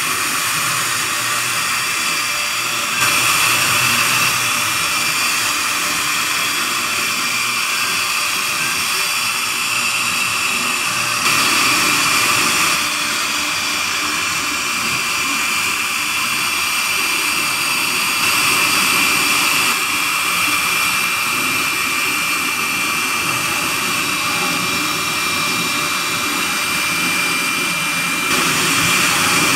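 CNC router spindle whining steadily with a high, steady tone as its end mill carves a relief into wood. The loudness shifts up and down in steps a few times.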